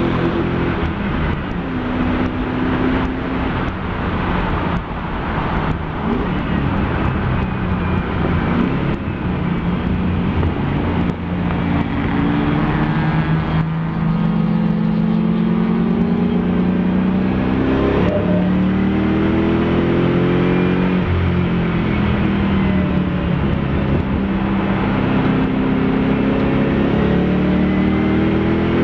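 Mopar-swapped Nissan Fairlady Z race car engine under hard driving. Its pitch climbs as it revs through the gears, then drops at each shift and on lifting off.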